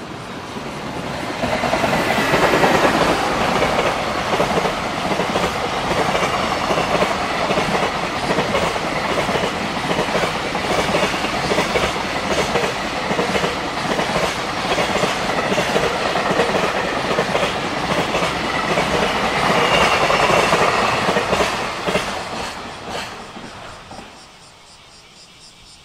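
Container freight train hauled by an EF210 electric locomotive passing close by: a loud, steady rumble with the regular clickety-clack of the wagons' wheels over the rail joints. It builds up about a second in and fades away over the last few seconds as the end of the train passes.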